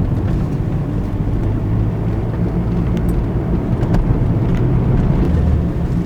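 Car driving along, with steady engine and road rumble.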